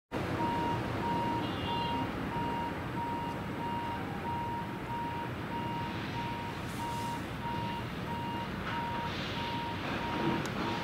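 Electronic warning beeper sounding a single tone about twice a second, over a steady rumbling background noise.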